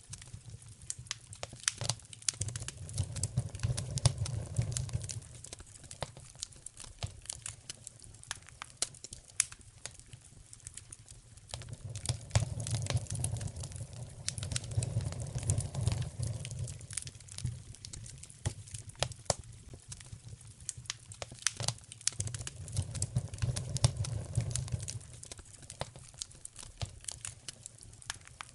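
Wood fire in a fireplace crackling and popping, with many sharp snaps. A low rumble swells up three times, each lasting a few seconds.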